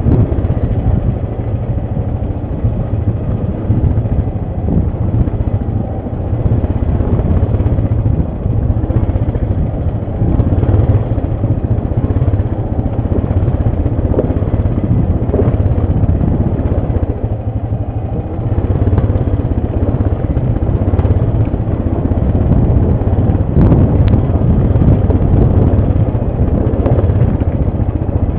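ATV engine running steadily while being ridden, its level easing off and picking up again through the ride. It grows louder about two-thirds of the way through, with a sharp click or knock shortly after.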